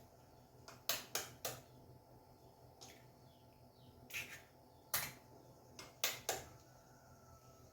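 Eggs being knocked against a bowl and cracked open: a few sharp taps about a second in, then more taps and shell cracks around four to six seconds.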